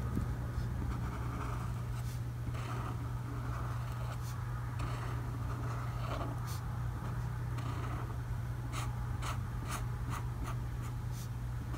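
Tombow ABT brush pen tip rubbing on paper as it colours in a shaded downstroke: soft, repeated scratching, the strokes coming quicker near the end, over a steady low hum.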